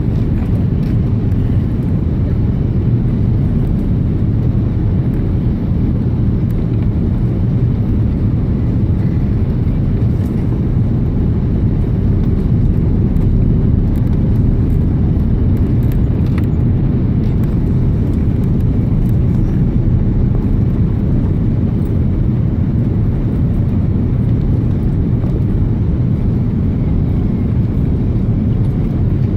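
Steady low roar of engine and airflow noise inside the cabin of an Airbus A330-300 airliner in flight on approach, even throughout.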